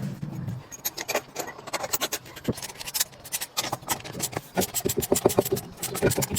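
A car engine running fades out in the first half second. Then come many irregular sharp metallic clicks and knocks of work on the car, turning into a fast, fairly even clicking near the end.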